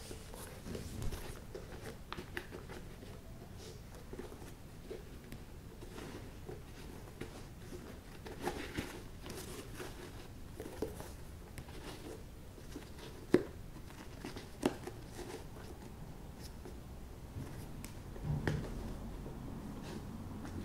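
Close-miked rustling and sliding of white flat shoelaces being threaded through the eyelets of a Nike Dunk High sneaker, with light ticks of the lace tips and hands on the leather upper. A sharp click comes a little past the middle and a soft thump near the end.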